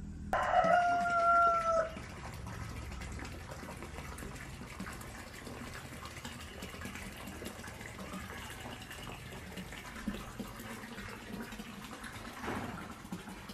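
Water running and splashing steadily into a concrete koi pond. About half a second in, a short call at one steady pitch, the loudest sound, lasts just over a second.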